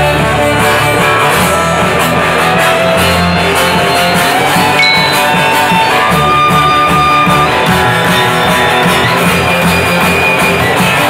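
Live rock band playing loudly, with upright double bass and electric guitar.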